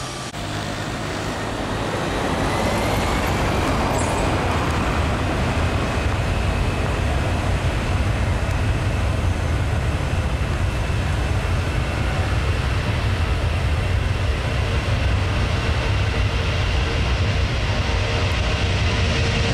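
Boeing C-17A Globemaster III's four Pratt & Whitney F117 turbofans spooling up to takeoff power for the takeoff roll. The noise swells over the first couple of seconds with a rising whine, then holds as loud, steady jet noise over a deep rumble.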